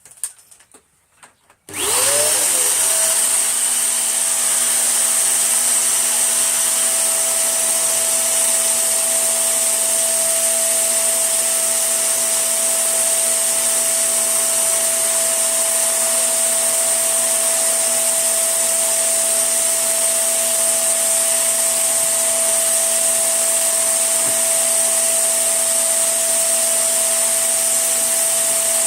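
Tesco Eco Pet V.CU12P upright vacuum cleaner switched on just under two seconds in, its motor rising quickly to speed and then running steadily with a constant whine.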